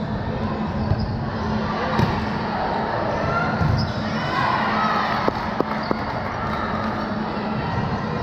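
Echoing indoor gym din of a volleyball game: balls thudding on hands and bouncing on hardwood, with players' voices calling out. A few sharp knocks come a little past halfway.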